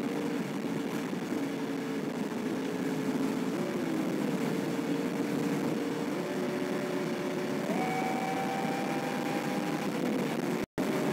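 A vehicle's engine and tyre noise heard from inside the cabin while driving on a highway; the engine note steps up in pitch a few times. The sound cuts out for an instant near the end.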